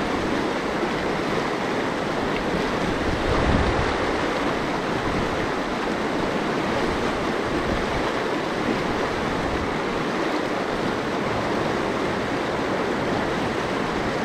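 Mountain stream rushing steadily over rocks, with gusts of wind buffeting the microphone.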